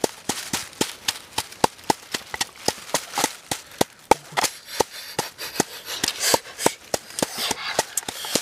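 Wooden pestle pounding red chili in a coconut-shell bowl: quick, even knocks about three a second, many followed by a short ringing note from the shell.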